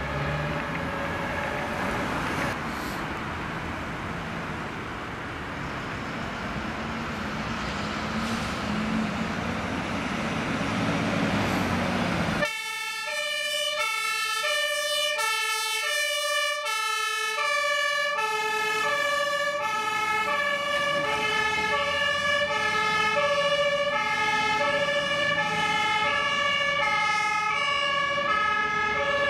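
Road traffic noise with a faint siren, then, after a sudden cut about twelve seconds in, a loud fire-engine two-tone siren (German Martinshorn) switching back and forth between two pitches a little faster than once a second.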